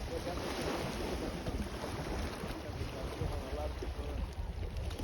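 Sea waves washing in, a rushing wash that swells and eases, with wind buffeting the microphone as a steady low rumble.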